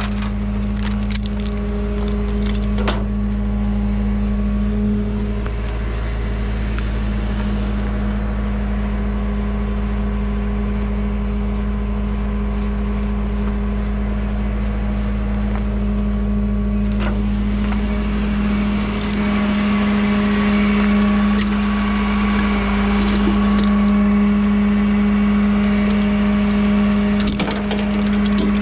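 Tow truck engine idling steadily, with sharp metallic clicks and rattles from a ratchet strap and its chain hook being handled and undone on the flatbed deck, bunched in the first few seconds, once around the middle and again near the end.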